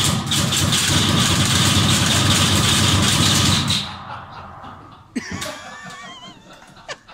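Loud rumbling noise with a fast rattle in it from a shooting simulator's loudspeakers, lasting about four seconds before dropping away. Faint wavering whistle-like tones follow.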